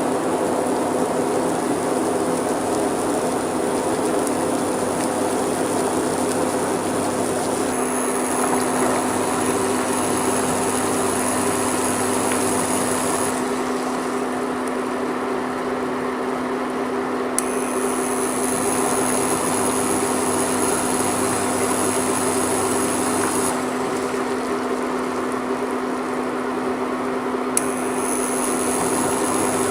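Herbal decoction boiling in a pan on a gas stove: a steady bubbling hiss with a constant low hum beneath it.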